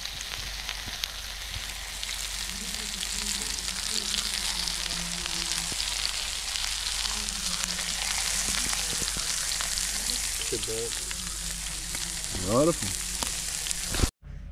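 Sausages sizzling in butter and garlic on a flat steel hot plate over an open fire: a steady frying hiss. About twelve seconds in, a brief louder pitched sound rises and falls over the sizzle.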